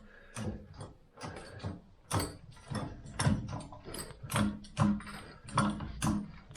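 Hydraulic trolley jack being pumped by its handle, a clicking mechanical stroke about two to three times a second as it raises the load.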